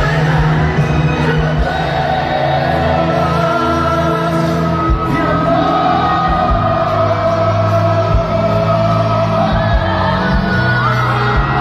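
A pop ballad played live by a full band through a concert sound system, recorded from the audience. A singer holds long sustained notes over steady bass and backing instruments.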